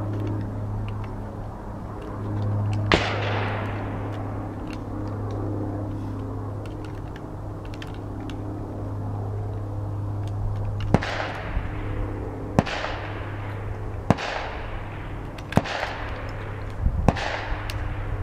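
Shotgun shots on a range: one shot about three seconds in, then a string of shots roughly a second and a half apart from about eleven seconds in, a couple close together near the end, each trailing off in an echo. A steady low hum runs underneath.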